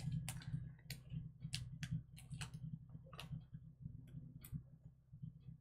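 About a dozen irregular sharp little clicks and ticks as foam adhesive dimensionals are peeled from their backing and pressed onto a paper card, over a steady low hum.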